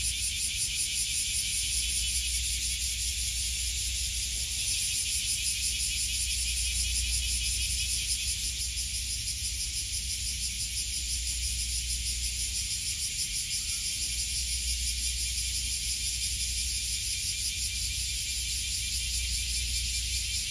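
Summer cicada chorus: a steady high-pitched buzzing with a fast pulsing texture, over a low steady rumble.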